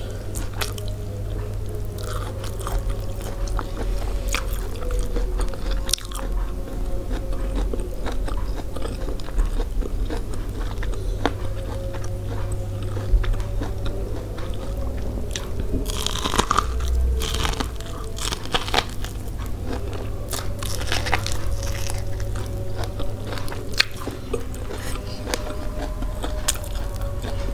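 Close-up biting and chewing of steamed sweet corn on the cob: frequent small crunches as the kernels are bitten off the cob, with a louder burst of crunching a little past halfway.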